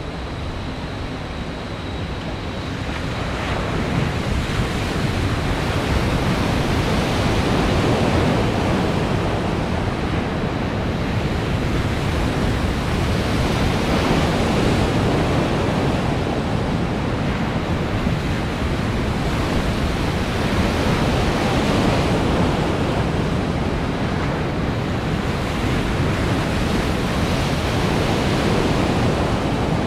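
Breaking waves in an artificial surf pool, a continuous rush of water that grows louder about four seconds in and then swells and eases gently.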